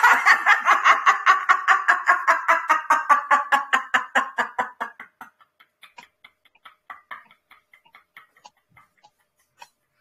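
A woman laughing in rapid pulsed "ha-ha-ha" bursts, about five a second, that lose their voice about five seconds in and carry on as faint breathy puffs. This is a laugh that ends in soundless exhaled coughing, the laughter-yoga silent-laugh breathing exercise.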